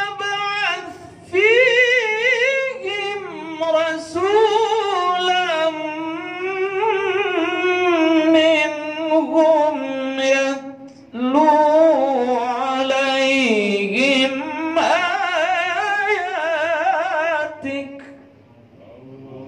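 A man reciting the Quran in an ornamented melodic chant (tilawah) into a handheld microphone, holding long wavering notes. He breaks off twice for breath and stops near the end.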